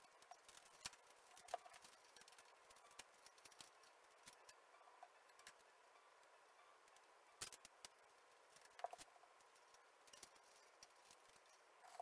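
Near silence with faint, scattered clicks and taps of hands fixing a cardboard kitchen-roll tube to a wall with sticky tape, a few slightly louder knocks among them.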